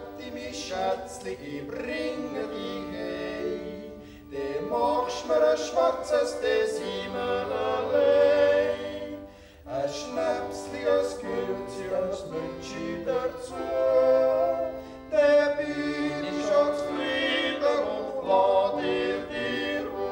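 Three men singing a Swiss folk song in close harmony, accompanied by an accordion, in phrases with short breaks about four and ten seconds in.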